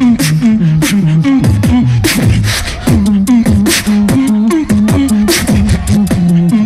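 Two beatboxers performing together through microphones: a hummed bassline stepping between notes under a steady beat of vocal kick, snare and hi-hat sounds.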